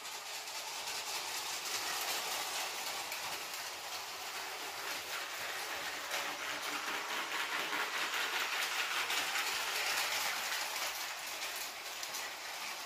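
A brick-built toy electric railcar train running over plastic brick track: its wheels give a steady, fine rattling clatter on the rails and joints, a little louder around the middle.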